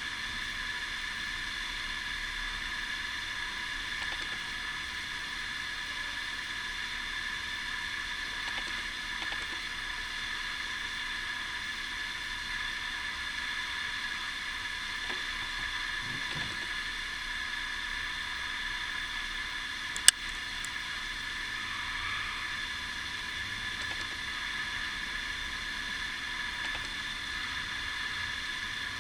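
Steady hiss with a faint whine in it, and one sharp click about twenty seconds in.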